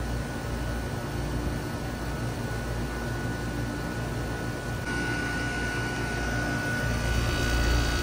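Trane XB13 2.5-ton heat pump outdoor unit running in cooling mode, its Climatuff reciprocating compressor and condenser fan giving a steady rush of air over a low hum with a thin, steady high whine. The sound grows slightly louder toward the end.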